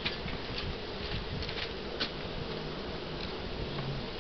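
Honeybees buzzing steadily around an open hive, with a few light clicks.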